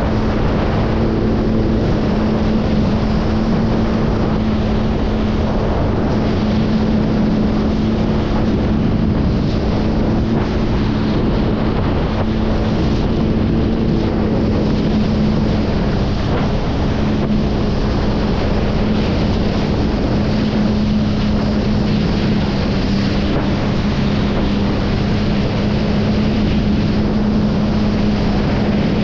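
Personal watercraft engine running steadily at cruising speed, a constant drone that holds its pitch throughout, under a rushing noise of wind on the microphone and water against the hull.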